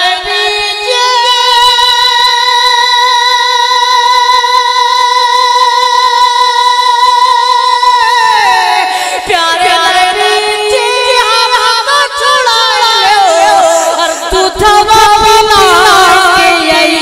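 A man singing a naat solo into a microphone: one long held note for about seven seconds, then a winding, ornamented run of notes without words.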